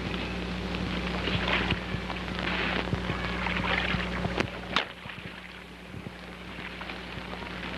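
Worn old film soundtrack: a steady electrical hum and hiss with scattered crackles and a sharp click about two thirds of the way through. Over it, a soft rushing swells and fades every second or so.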